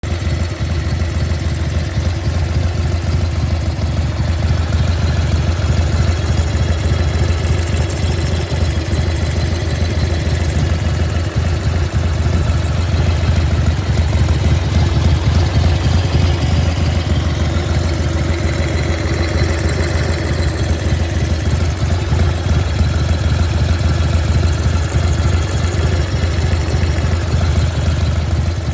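1995 Harley-Davidson FXSTSB Bad Boy's Evolution V-twin engine idling steadily, making a noise the owner finds strange.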